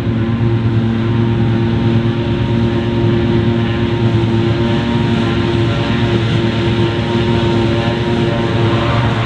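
Large diesel engine of heavy harvest machinery running steadily at constant speed: a loud, even drone that holds one pitch throughout.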